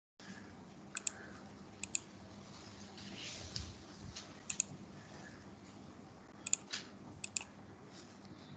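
Computer mouse clicking, mostly in quick pairs, several times over the few seconds, over a faint steady hum.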